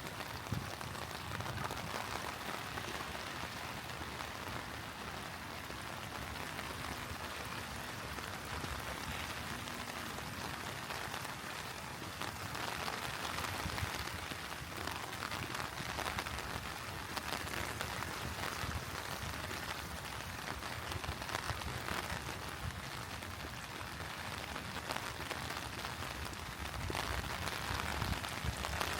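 Steady rain falling, an even hiss with no thunder or other distinct sounds.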